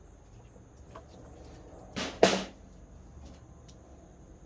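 Hand work on engine intake parts: small faint clicks, then two short, sharp noises about two seconds in, the second the louder, as parts or tools are handled.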